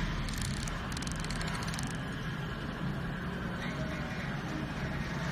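Steady low background hum with no distinct event standing out.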